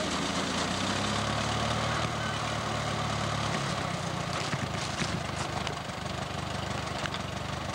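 Vintage farm tractor engine running steadily as it pulls a grain binder through standing wheat, its low hum easing off a little about three and a half seconds in. A few light clicks from the binder's mechanism come in the second half.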